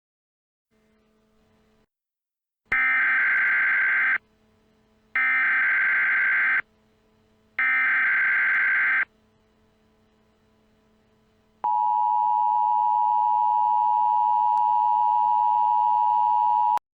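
Emergency Alert System tones: three buzzy data bursts of the SAME header, each about a second and a half long with a short gap between them, then the steady two-tone attention signal for about five seconds, which cuts off abruptly.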